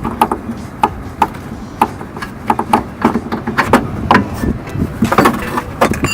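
Tool work on a rear shock absorber's mounting bolt: a run of irregular sharp metallic clicks and knocks, a few a second, some ringing briefly.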